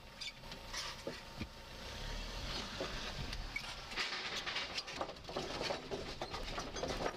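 An SUV's tyres rolling slowly over the loose wooden deck planks of a steel truss bridge in disrepair. The boards clatter and knock irregularly over a low rumble, the knocks coming thicker from about four seconds in.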